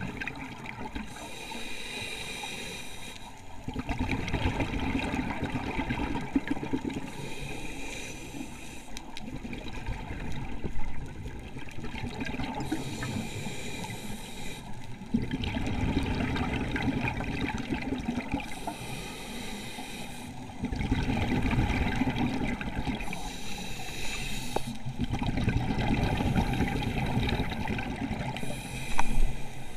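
Scuba diver breathing through a regulator underwater: a hiss on each inhalation alternates with the louder, low bubbling rush of exhaled air, one breath about every five to six seconds.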